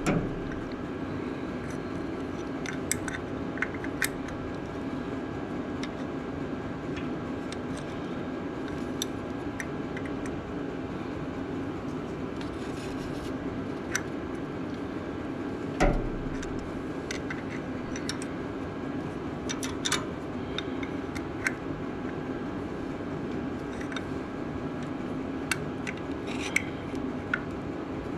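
Scattered sharp metallic clicks and clinks of hand tools working on a Ford 8N tractor while a part is fitted and bolted on, with one heavier knock about sixteen seconds in. A steady hum runs underneath.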